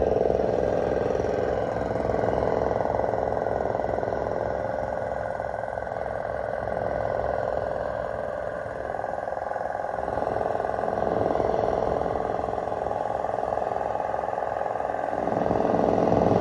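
A vehicle engine running steadily nearby, its note rising and falling gently, over street noise with voices.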